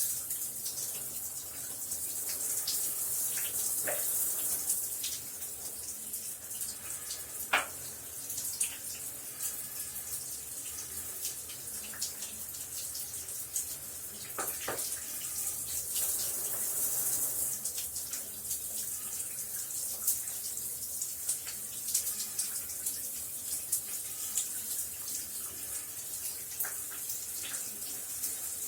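Shower running steadily, water spraying with a high hiss and scattered drops and spatters, a few louder splashes standing out now and then.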